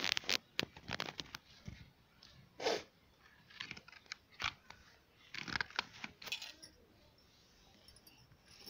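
Irregular clicks, taps and crackles of a small child handling a hard plastic toy on a woven plastic-mesh cot, in several quick clusters with short quiet gaps between.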